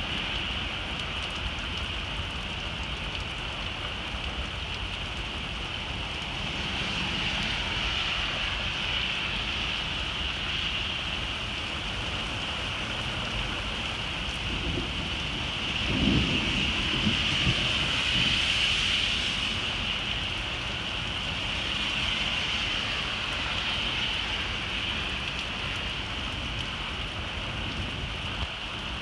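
Heavy rain falling steadily, with a low rumble of thunder a little past halfway.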